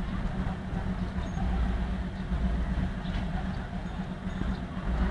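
Diesel locomotive idling at a standstill: a steady low engine hum and rumble.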